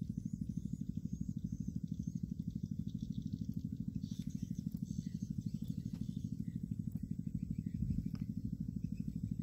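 A small engine running steadily nearby, with an even, fast low pulse.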